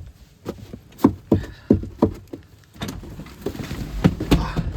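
An irregular series of about ten thumps and scuffs, two or three a second, from someone climbing into a snow-covered van, with a low rumble underneath.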